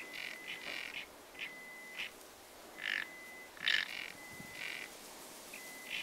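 Frogs croaking at a pond: short raspy calls repeat every half second to a second, with a thin, steady high tone running between them.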